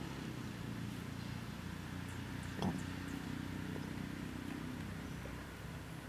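Steady low hum, with one brief sharp sound about two and a half seconds in.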